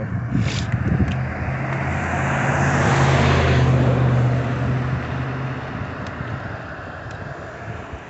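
A motor vehicle passes by: its engine hum and tyre noise swell to a peak about three to four seconds in, then fade away.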